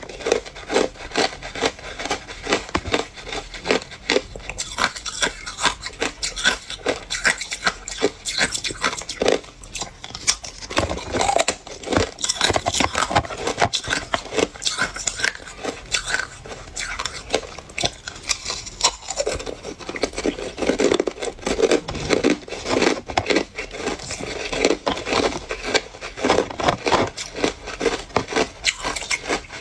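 Hard ice cubes crunching and cracking: cubes bitten and chewed, and connected cubes snapped apart, close to the microphone. A dense, continuous run of sharp cracks and crackles, with heavier crunching clusters near the middle and toward the end.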